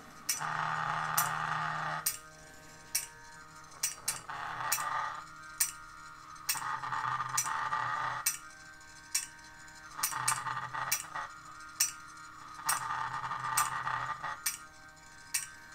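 Atik EFW3 filter wheel doing a reset run with its cover off. Its motor spins the wheel in repeated stretches of a steady whine, each lasting a second or two. Sharp clicks come about every half second to second as the position switch rides through the notches on the wheel to find its home position.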